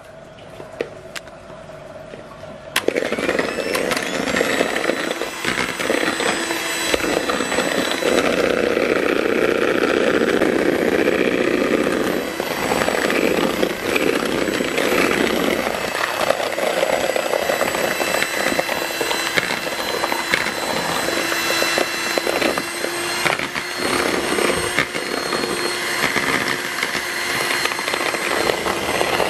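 Electric hand mixer running, its wire beaters whipping eggs and sugar in a bowl to beat them pale and thick. It is quieter at first, then becomes suddenly louder about three seconds in and runs on with a steady motor whine.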